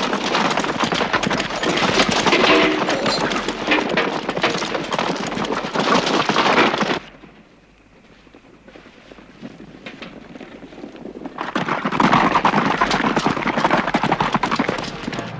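A group of horses galloping, a dense rapid clatter of hoofbeats. It drops away suddenly about seven seconds in and comes back about four seconds later.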